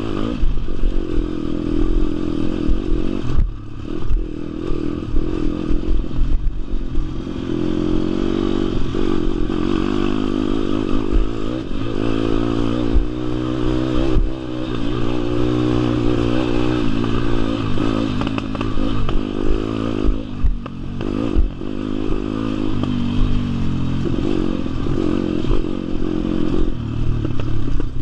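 WPB 160R pit bike's single-cylinder four-stroke engine running hard on a motocross lap, its pitch climbing and falling as it is revved up and eased off, with brief throttle-offs about 3 seconds in and about 20 seconds in. The bike clatters over the rough dirt throughout.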